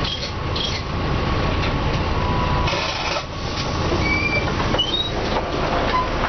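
Cabin noise aboard a Mercedes-Benz O405N diesel bus with a ZF automatic gearbox: a steady low engine and road rumble, with a few brief high squeaks about four to five seconds in.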